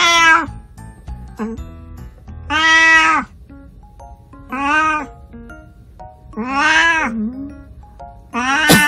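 A 19-year-old calico cat meowing loudly about every two seconds, five drawn-out calls that rise and fall in pitch, while held upright for a belly massage to help it defecate.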